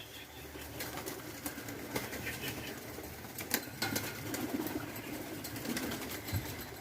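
Birds calling softly a few times, with scattered sharp clicks and taps.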